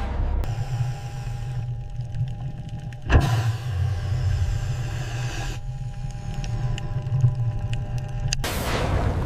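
A low, steady mechanical hum like a motor running, changing abruptly several times, with one sharp thump about three seconds in.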